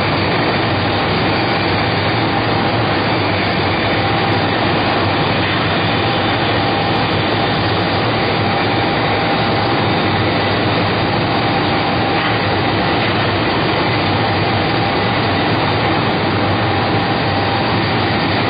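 Baby diaper production machine running: a steady, loud, even machine roar with a thin steady whine through it.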